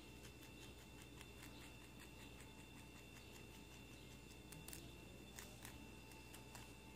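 Faint, crisp clicks of a lop-eared rabbit chewing a stem of grass, several small irregular clicks a second.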